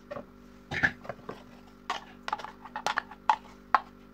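Food processor's plastic blade and bowl being handled: a series of irregular sharp clicks and knocks as the blade is pulled out of the bowl and the bowl is moved.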